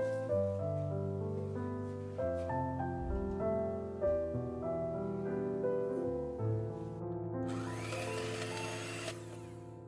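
Gentle piano background music, a melody of held notes. Near the end a short whirring noise rises in pitch for about two seconds, then stops.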